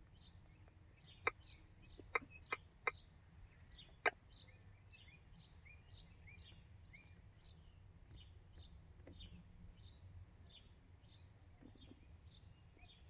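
A bird repeating a short, high, falling chirp about twice a second, faint and steady. A few sharp clicks stand out louder in the first four seconds.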